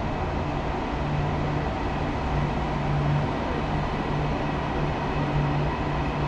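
KTX high-speed train on a far track pulling slowly out of the station, giving a steady low hum and rumble.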